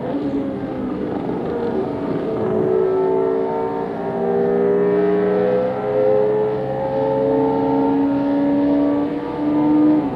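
Formula 1 car's Cosworth DFV V8 running at high revs on-board, its pitch climbing steadily through each gear and dropping back at each of several upshifts.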